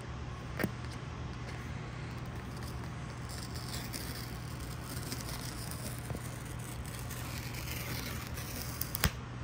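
Paper tear strip being pulled along the side of a cardboard product box, a scratchy tearing that comes and goes through the middle, over a steady low hum. A sharp click about half a second in and a louder one near the end.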